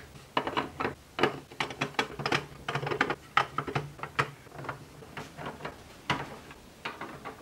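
Small plastic HO scale model shipping containers clicking and knocking against each other as they are stacked by hand. The clicks come as a rapid, irregular run and thin out in the last couple of seconds.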